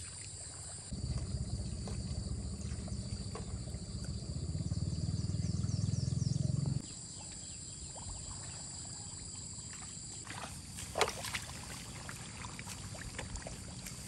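Outdoor ambience beside a muddy stream: a steady high-pitched insect drone, under a low rumble that starts about a second in and cuts off abruptly about halfway through. A few short, sharp sounds come about three-quarters of the way through.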